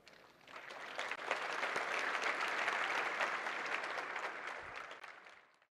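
Audience applauding at the end of a talk. Many hands clap, building up about half a second in, then dying away near the end.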